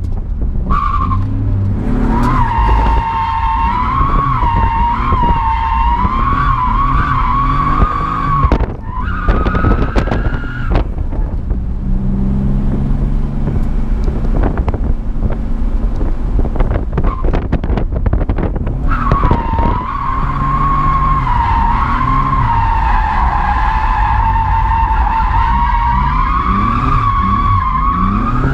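Car tyres squealing in a long, wavering screech as a BMW slides through the corners, with its engine revving up and down underneath, heard from inside the stripped cabin. The squeal drops out for about ten seconds in the middle, leaving only the engine, then returns for the last third.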